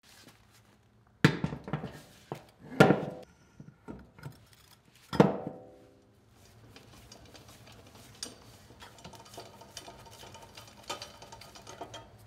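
Metal clanks of a wrench and socket on a wheel's lug nuts: three sharp clanks, the last and loudest about five seconds in with a short metallic ring, then lighter clicking and ticking.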